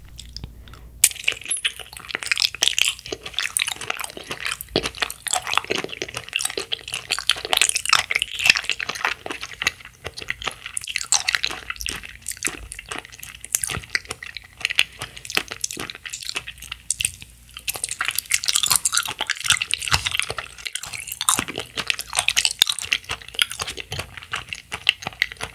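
Close-miked chewing of a chewy red gummy jelly on a stick: a bite about a second in, then continuous wet, sticky mouth clicks and smacks as it is worked.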